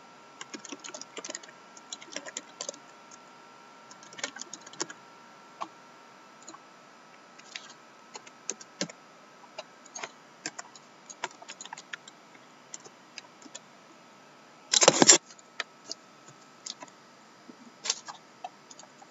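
Irregular light typing and clicking on a computer keyboard and mouse. About fifteen seconds in, one short, much louder clatter.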